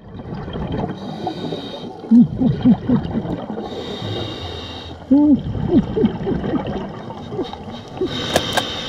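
Scuba diver's muffled 'wow' and laughter through the regulator underwater, in short pitched bursts, with hissing regulator breaths and gurgling exhaled bubbles in between.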